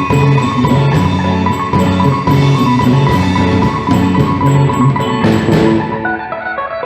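Live instrumental band music led by mallet percussion playing a melody of short ringing notes over drums, with a crash about five seconds in.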